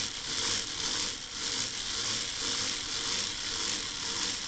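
Black & Decker 2.4-volt cordless screwdriver's gearhead motor and gear train whirring as it is hand-cranked at a steady rate, back-driven as a DC generator. The sound rises and falls with each turn of the crank.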